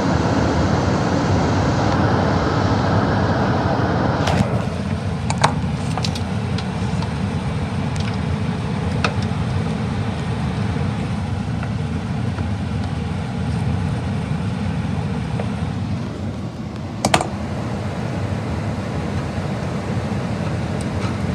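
Furnace blower motor running with a steady rush of air after burner shutdown, on its cool-down run for the heat exchanger. About four seconds in, part of the higher-pitched air noise drops away. A few sharp clicks fall over it, one louder near the end.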